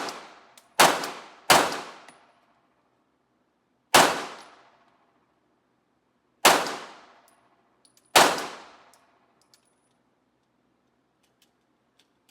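Pistol shots fired one at a time: five sharp reports, the first two less than a second apart and the rest about two seconds apart, each ringing out with a short echo. A few faint clicks near the end.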